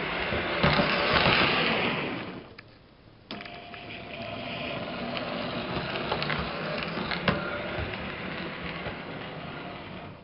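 O gauge 3-rail model train running: the locomotive's M.T.H. RailKing GP-30 motor mechanism whirring while metal wheels roll and click over rail joints and points. It drops away briefly about two and a half seconds in, then picks up again abruptly and carries on.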